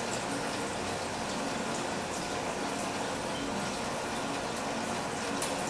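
Rainwater running down a cup-style rain chain in a summer shower: a steady trickling and splashing from cup to cup, with a few sharper drips.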